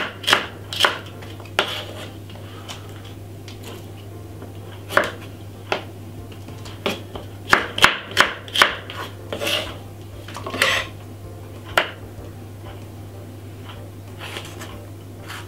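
Kitchen knife chopping vegetables on a wooden cutting board: irregular sharp knocks of the blade on the board, some in quick runs, over a low steady hum.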